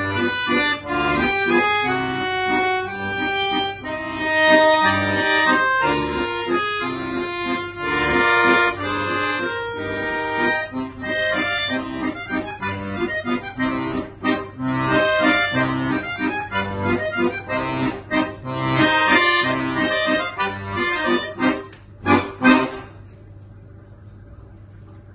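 Solo instrumental performance: a fast piece in many sustained notes over a regular low bass line, closing with loud short final chords about 22 seconds in. Quiet room noise follows.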